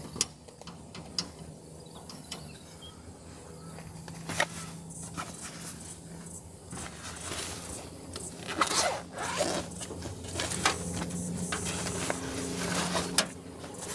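Camping gear being handled: irregular clicks, scrapes and zip-like rasps, busiest in the second half, over a faint steady low hum.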